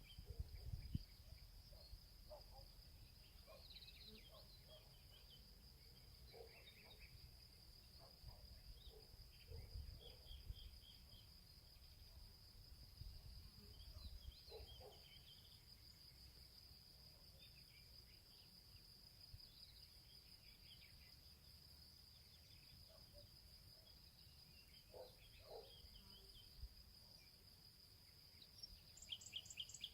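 Faint, steady insect trilling, high-pitched and unbroken, with scattered short bird chirps and a few soft knocks.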